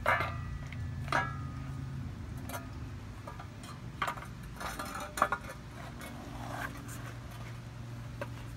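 Metal relocation bracket and plastic evap canister knocking and clinking together as the canister is fitted onto the bracket. A sharp clank with a short metallic ring opens it, another comes about a second in, and lighter clinks and knocks follow, the loudest about five seconds in.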